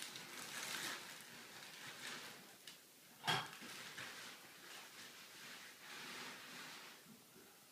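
Jack Russell terrier puppies about three and a half weeks old moving about, with soft rustling and scuffling, and one short, sharp louder sound about three seconds in.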